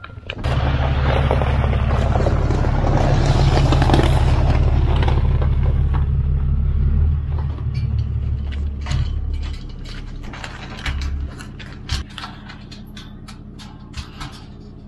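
A vehicle engine running with a deep, steady hum and a rush of mechanical noise over it. The hum cuts off about nine and a half seconds in, leaving a few scattered knocks and clanks.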